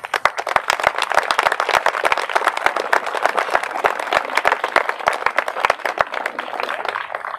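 Audience applauding: many hands clapping steadily, then stopping near the end.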